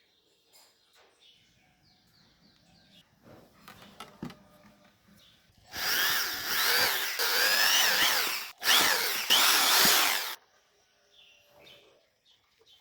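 Small handheld power tool motor running in two bursts, about three seconds and then under two seconds with a brief stop between, its pitch wavering as it works under load.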